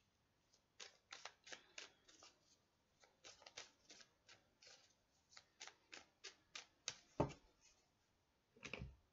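A deck of tarot cards being shuffled by hand: a run of soft card flicks and slaps a few times a second, with a couple of duller knocks near the end.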